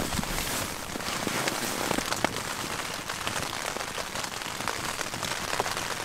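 Steady rain on the fabric of a tipi tent, heard from inside, an even hiss with a few scattered sharper ticks.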